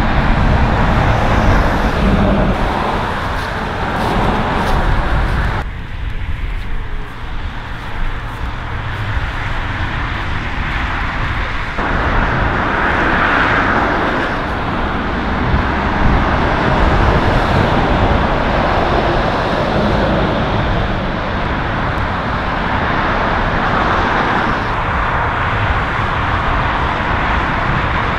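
Steady road traffic noise, an even rushing that shifts abruptly about six and again about twelve seconds in.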